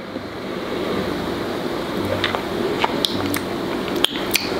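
A person drinking smoothie from a blender jug and tasting it: quiet swallowing, then a few short wet mouth clicks and lip smacks over a steady room hiss.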